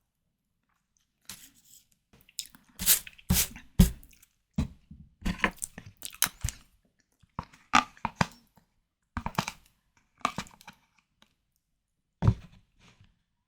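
A person chewing and biting white tiger prawn cocktail close to the microphone. The mouth sounds come in irregular bursts starting about a second in, with short pauses between them.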